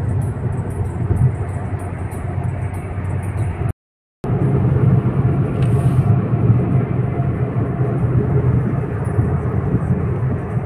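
Steady road and engine noise inside a moving car's cabin, with a low hum and tyre rush. It drops out completely for about half a second just before the middle, then carries on.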